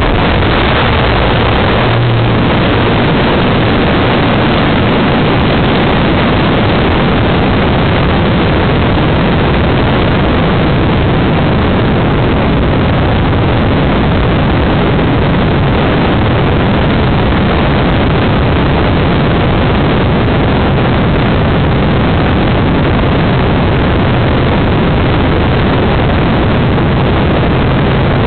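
A radio-controlled model plane's motor and propeller running flat out right beside the onboard camera, heard as a loud, unchanging roar that swamps everything else.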